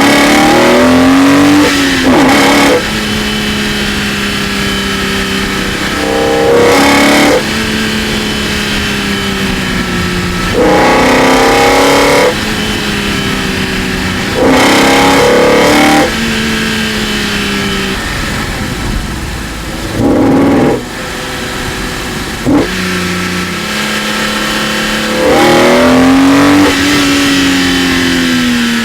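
BMW E46 M3's S54 straight-six, breathing through individual throttle bodies and a carbon-fibre Eventuri intake, giving short bursts of loud induction noise under hard throttle. The bursts come roughly every four seconds, each lasting a second or so, between stretches of a steady, quieter engine note while cruising.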